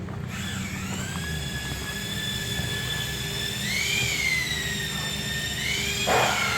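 A power tool running with a high-pitched whine whose pitch wavers twice, with a short harsh burst near the end, over a low steady rumble.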